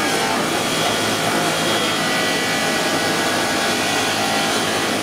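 Belt-driven abrasive polishing wheel running with an aluminium cooker body pressed against it: a continuous grinding noise over a steady low machine hum.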